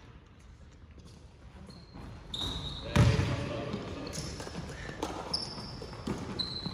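Basketball game on an indoor court: a ball thumps loudly on the floor about three seconds in, among short high squeaks on the court floor and distant voices.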